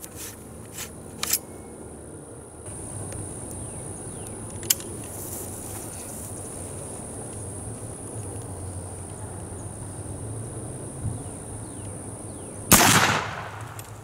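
A single shot from a .69 caliber M1842 percussion rifle musket, loaded with a 730-grain Minié ball over 70 grains of black powder: one loud blast near the end that dies away over about half a second.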